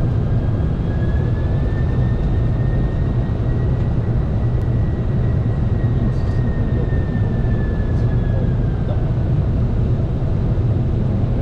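Steady, loud flight-deck noise of a Boeing 747-400 freighter on approach: a dense rumble of airflow and engines. Over it runs a faint high whine that drifts slightly up and then back down in pitch.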